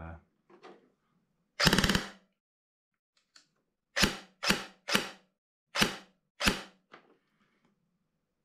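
G&G PRK9 airsoft electric gun firing: a short full-auto burst about two seconds in, then five single shots in quick succession, each a sharp mechanical snap. Loud.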